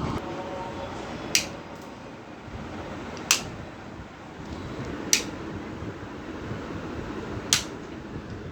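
Four sharp pops, spaced about two seconds apart, over a steady background noise.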